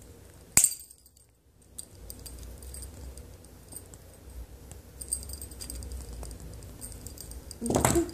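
Small metallic clicks and clinks of jewellery pliers closing a metal jump ring on a bottle-cap pendant, with a sharp click about half a second in and faint ticking after. Louder handling noise comes near the end.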